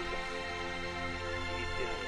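Background music with sustained, held chords.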